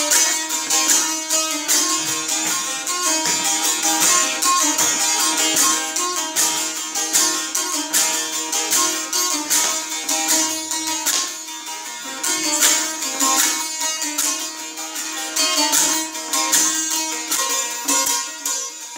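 Azerbaijani saz, a long-necked lute, played solo: fast, steady strumming over strings held ringing at a steady pitch.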